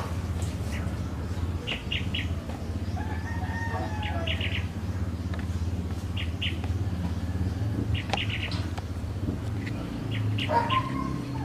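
Small birds chirping in quick clusters of two to four short notes, repeated every second or two, over a steady low hum.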